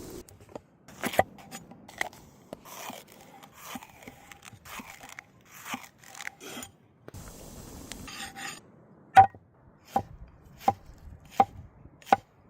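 A knife chopping on a wooden cutting board, with irregular cuts and scrapes at first, then five even, sharp chops near the end.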